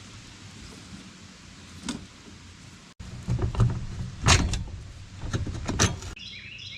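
Scattered metal knocks and clanks of tools and parts as the minibike is taken apart, over a steady low hum; the sound cuts off abruptly twice, as at edits.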